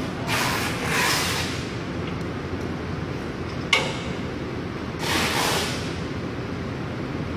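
Steady running noise of a large glass-fibre cloth batching machine, with two short hissing swishes, one about half a second in and one about five seconds in, and a single sharp click near the middle.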